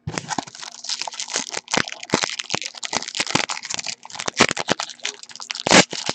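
Foil trading-card pack wrapper crinkling and tearing as it is opened by hand: dense, continuous crackling, with one louder crackle near the end.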